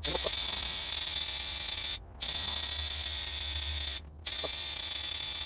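Air hissing steadily out of a four-tire deflation manifold's release valve as all four 35-inch off-road tires are let down together, with a high whistle running through the hiss. The flow is shut off briefly twice, about two seconds apart, then resumes.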